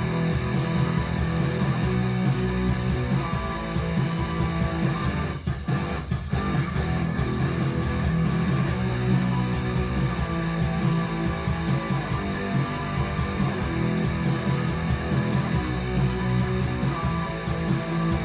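Guitar-led music with a bass line playing steadily, reproduced through speakers driven by a Fosi Audio ZA3 class-D amplifier as a listening demo.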